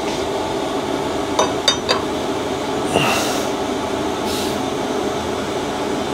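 A few light metal clinks and scrapes as a metal tube is offered up against a motorcycle's rear subframe, over a steady fan-like hum.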